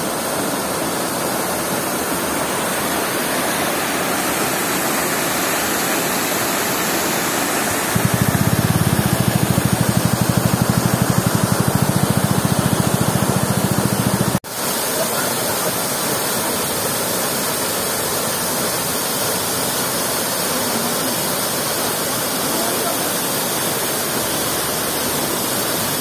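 Waterfall cascading: a steady, loud rush of falling water. From about a third of the way in a low rumble joins it for some six seconds, and the sound cuts out for an instant just after the halfway point.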